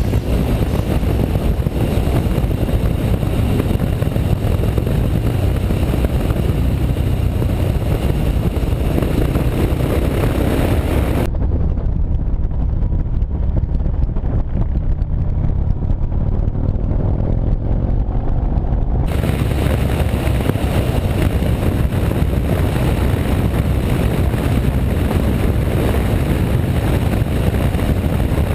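Motorcycle engine running at a steady cruise with heavy wind rumble on the bike-mounted camera's microphone. For about eight seconds past the middle the sound turns suddenly duller and more muffled, then brightens again.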